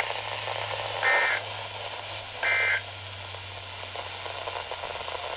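Two short screeching data bursts of the NOAA Weather Radio SAME end-of-message code, about a second and a half apart, over radio static and a low hum: the signal that the alert broadcast is over.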